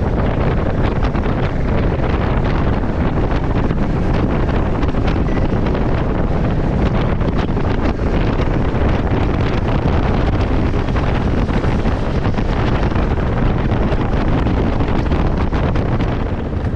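Heavy wind rush and buffeting on a motorcycle rider's camera microphone at road speed, with the motorcycle running underneath. The wind eases slightly near the end.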